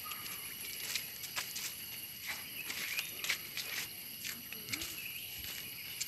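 Footsteps crunching on dry leaf litter, irregular and about one or two steps a second, over a steady high-pitched insect drone.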